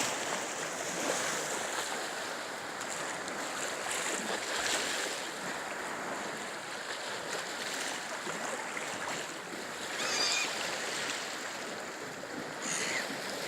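Black Sea waves washing in, a steady rushing wash. Two brief high-pitched sounds cut through it, one about ten seconds in and one near the end.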